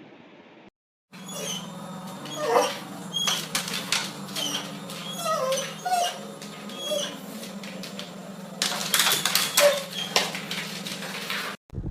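A dog whimpering and yipping in short whines that slide up and down, over a steady low hum, with a patch of clicking and rustling near the end.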